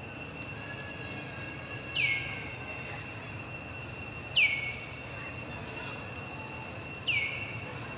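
Outdoor forest ambience: a steady high-pitched insect-like drone, with three short calls that sweep downward in pitch, about two and a half seconds apart, as the loudest sounds.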